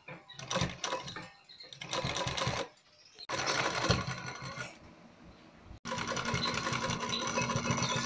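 Black household sewing machine stitching through layered trouser fabric, in a few short runs in the first half, then running steadily after a sudden break a little past the middle.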